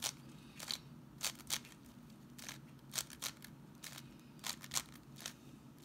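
Plastic layers of a 7x7 puzzle cube clacking as they are turned by hand, about ten short clicks at an uneven pace, the wide-layer turns of a parity algorithm.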